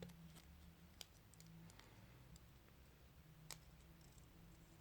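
Near silence with a few faint, sharp clicks of small plastic toy pieces being handled.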